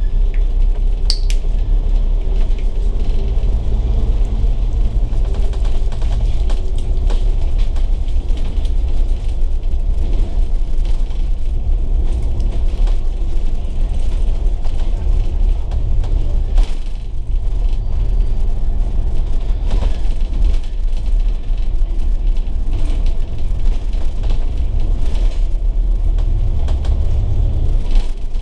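Volvo B9TL double-decker bus under way, its rear-mounted Volvo D9 six-cylinder diesel and drivetrain giving a low drone that strengthens and eases several times as it pulls and backs off. Scattered clicks and rattles ride over it.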